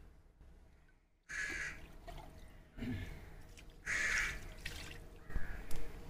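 Crows cawing: short harsh calls starting about a second in, two loud ones a few seconds apart and a fainter third. A few sharp taps near the end.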